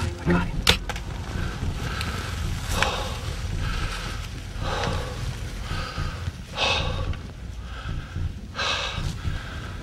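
A person breathing hard close to the microphone, one loud breath about every two seconds, over a low steady rumble.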